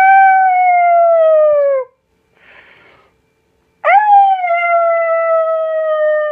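A puppy howling: two long, steady howls. The first trails off and falls in pitch just under two seconds in; the second starts about four seconds in and falls in pitch at its end.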